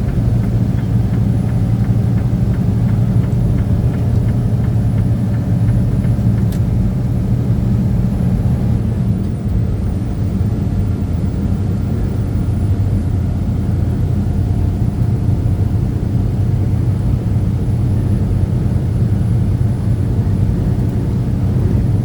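Steady low drone of a truck's engine and road noise, heard from inside the cab while driving.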